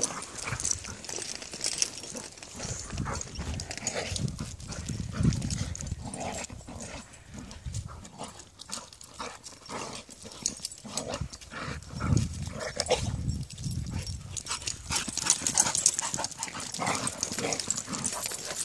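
Dogs on a walk: irregular scuffing and tapping of steps on a paved path, with muffled low thumps and occasional short dog sounds.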